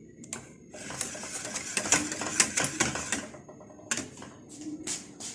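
A utensil stirring fast in a metal saucepan: a quick run of clicking and scraping for about three seconds, then a few separate knocks near the end. This is pastry cream being stirred without a pause as it thickens on the heat.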